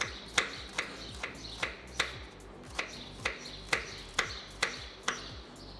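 Kitchen knife cutting an onion against a wooden cutting board: a steady series of sharp taps, about two or three a second, that stops shortly before the end.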